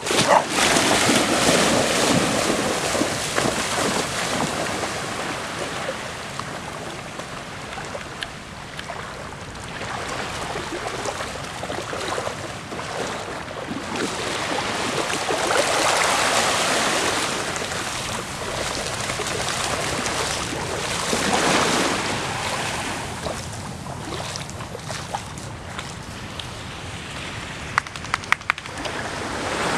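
Wind rushing on the microphone and small waves lapping at a sandy shore, a steady noise that swells and eases every few seconds.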